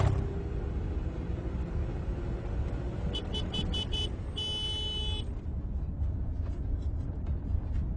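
A car on the move with a steady road and engine rumble and a brief knock at the start. About three seconds in, a vehicle horn toots five quick times and then gives one long blast of about a second, warning a herd of cattle walking on the road ahead.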